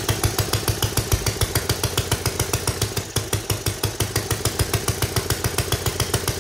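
Homemade metal 3D-printed single-cylinder four-stroke engine running on its own after a pull start. It fires in a fast, even beat of about six a second.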